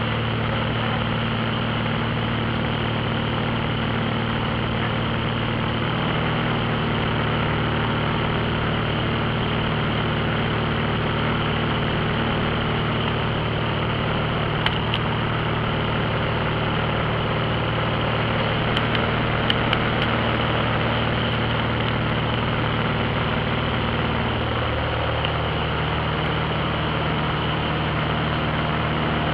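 Steady drone of a high-wing light aircraft's engine and propeller, heard from inside the cabin in flight. A few faint clicks come about halfway through.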